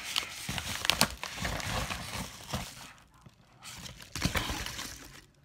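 Packaging being handled and opened: irregular crinkling, rustling and sharp clicks, with a quieter moment about three seconds in.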